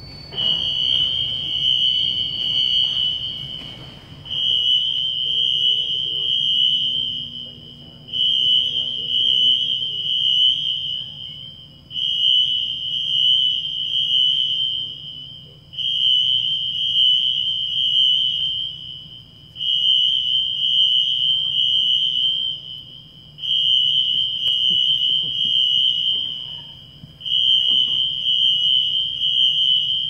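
Hangar fire alarm sounding during a test: a high tone repeating in long blasts of about three and a half seconds, each followed by a short break.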